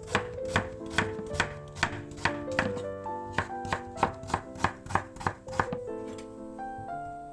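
Kitchen knife chopping on a cutting board in quick, even strokes, about three a second, stopping near the end, over background music.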